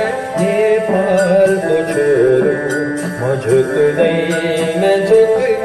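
Electronic keyboard music: an ornamented lead melody that bends and wavers in pitch, over held chords and light percussion.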